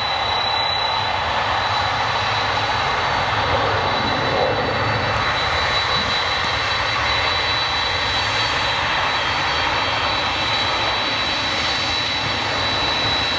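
Boeing 767's General Electric CF6 turbofan engines running at taxi power: a steady jet rush with a high, piercing whine held over it, the "screaming" of the engines on taxi.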